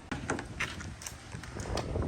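Marbles rolling down a marble run, clicking and knocking against the track and each other in a quick, uneven series of taps.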